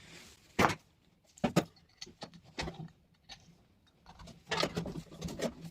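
Scattered sharp clicks and light knocks, with a short rattling cluster near the end, from an air-conditioner start capacitor and its wire terminals being handled and set down.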